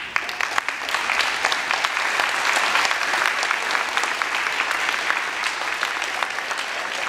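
Audience applauding: scattered claps at first, filling in to steady clapping from many hands about a second in.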